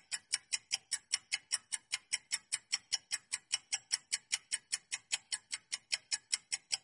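Quiz countdown timer sound effect: an even, fast clock-like ticking, about four to five ticks a second, as the on-screen timer counts down.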